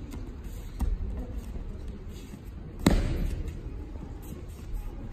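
Aikido partner's body hitting tatami mats in breakfalls: a lighter thud about a second in and a loud slap-and-thud near three seconds, each echoing in the hall.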